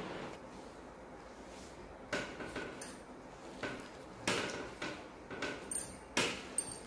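Light clicks and clatters of a Ludo game: plastic tokens set on the plastic board and a die rolled, a scattered run of small knocks starting about two seconds in.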